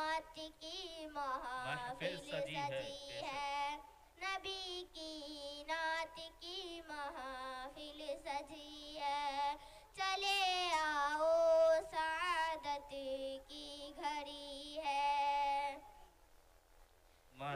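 A girl singing a naat solo into a microphone, without instruments, in long melodic phrases with wavering, ornamented held notes. She pauses briefly about four seconds in and stops about a second and a half before the end.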